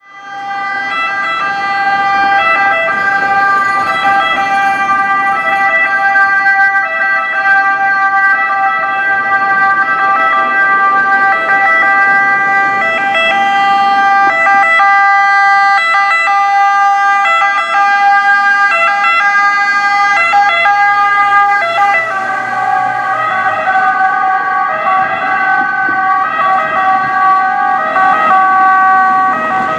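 Italian ambulance's two-tone siren sounding continuously as the ambulance drives past, its tone pattern changing about two-thirds of the way through as it goes by and moves away. A low engine hum comes through briefly just before the change.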